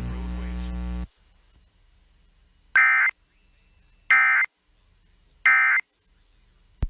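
Steady buzzing hum that cuts off about a second in, then three short bursts of Emergency Alert System digital data tones, evenly spaced about a second apart: the end-of-message code sent over NOAA Weather Radio to close the warning. A short click comes near the end.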